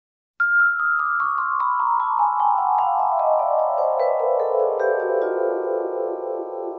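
Vibraphone: a quick descending run of single mallet strikes, about five notes a second, starting about half a second in. Each note keeps ringing under the next. The run ends a little after five seconds and the pile of notes rings on.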